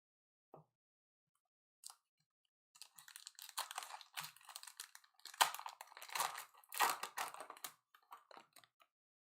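A foil sports-card pack being torn open and its wrapper crinkled, with a few small clicks first and then a few seconds of irregular crackling.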